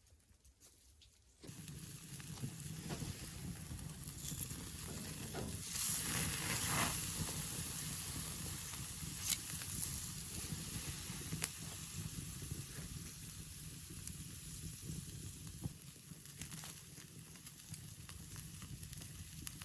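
Food sizzling and frying in a hot pan, starting suddenly about a second and a half in, with scattered sharp pops through the sizzle.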